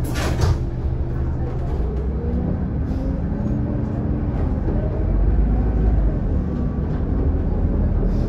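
Scania K280UD double-decker bus's five-cylinder diesel engine and drivetrain pulling the bus away, heard from inside the lower-deck cabin, with the engine note rising during the first few seconds and a deep low rumble about halfway through.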